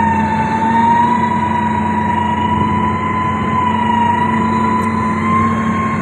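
Heavy road-building machinery running steadily: a low engine drone under a high, slightly wavering whine.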